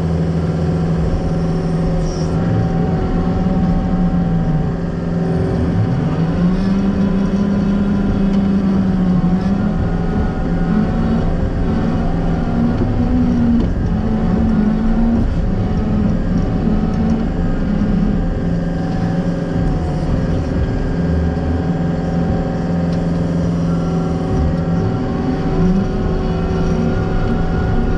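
John Deere 333G compact track loader's diesel engine running under work, its speed rising and falling several times as it is worked.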